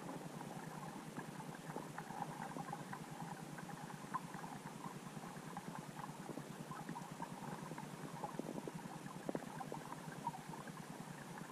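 Underwater ambience heard through a submerged camera: a steady muffled rumble with frequent small, irregular clicks and pops.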